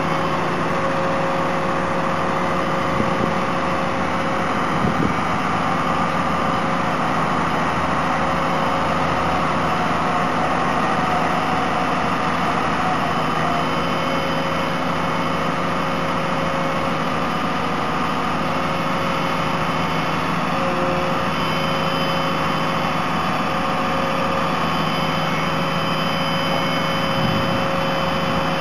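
Fire brigade turntable ladder truck's engine running steadily, driving the ladder's hydraulics as the ladder and its cage are lowered.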